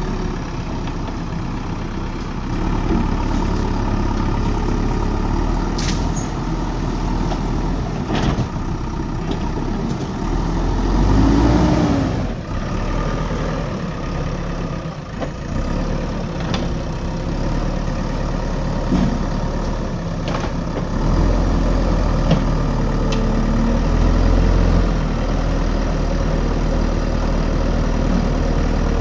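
JCB backhoe loader's diesel engine running steadily, swelling louder at times, with a few sharp knocks.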